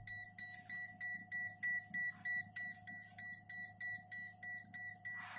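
Fan controller's built-in buzzer beeping in an even, rapid series of high-pitched beeps, about three a second: its alarm for the second fan channel. A steady low hum runs underneath.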